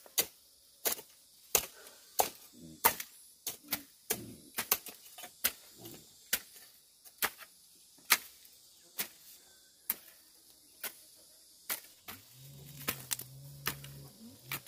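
Sharp knocks, something being struck over and over at about one and a half strikes a second, somewhat unevenly. A steady low hum comes in near the end.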